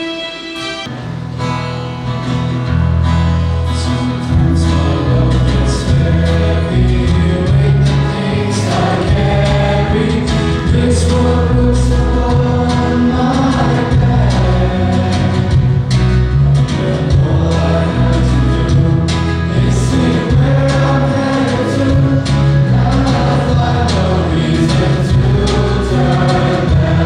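A group of students singing the school anthem together as a choir, over instrumental accompaniment with a strong bass line.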